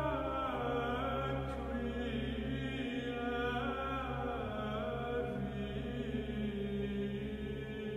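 Slow, chant-like singing of a French prayer over a sustained musical drone, closing on 'Amen'.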